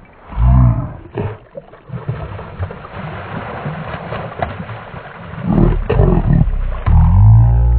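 A hooked flathead catfish and a blue catfish thrashing and splashing at the water's surface. Loud low rumbling bursts come just after the start and over the last couple of seconds.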